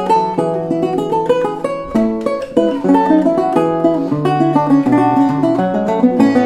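Renaissance lute playing a polyphonic passage: a steady flow of quick plucked notes over longer-held bass notes.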